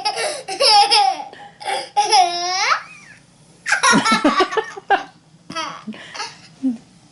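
Young girl giggling and laughing in several high-pitched bursts, with a drawn-out squeal about two seconds in.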